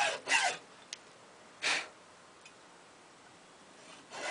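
Fine, thin-bladed hand saw cutting into a wooden shotgun buttstock: a couple of quick strokes at the start and one more about a second and a half later, then a pause before the strokes start again near the end.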